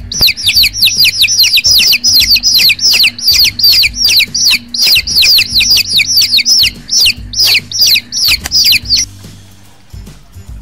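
Baby chicks peeping loudly, a rapid run of high peeps that each slide downward, about four or five a second, stopping about nine seconds in. Background music with low sustained notes plays underneath.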